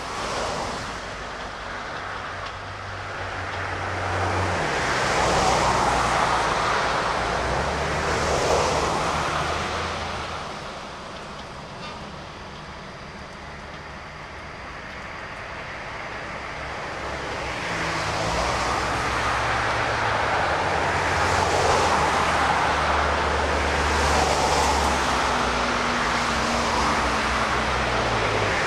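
Meitetsu Tanigumi Line electric tramcar running on the track: a low motor hum that steps in pitch and a rumble of wheels on rail. The sound swells about five seconds in, fades near the middle and builds again towards the end.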